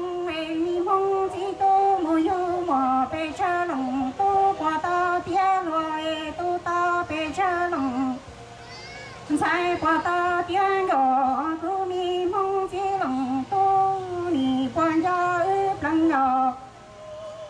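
A woman singing a Hmong song into a handheld microphone, in long sung phrases. There is a pause of about a second some eight seconds in, and a shorter break near the end.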